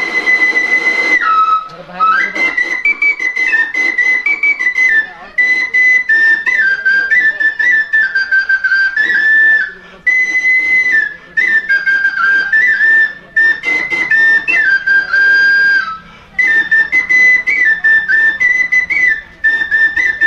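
Bansuri (bamboo flute) playing a high folk melody solo, stepping between notes with quick ornaments, in phrases broken by short pauses for breath.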